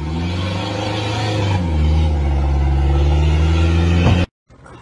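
SUV engine revving hard under load while it hauls a boat on its trailer up a muddy ramp. The pitch steps up twice in the first two seconds and then holds high and steady, until the sound cuts off suddenly near the end.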